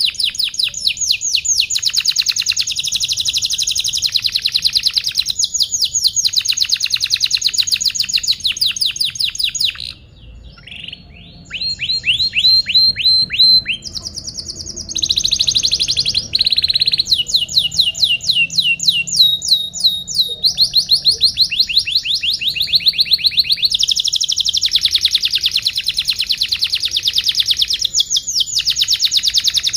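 Domestic canary singing a long, continuous song of rapid trills, fast runs of repeated chirping notes that change from phrase to phrase. There is a short quieter break about ten seconds in.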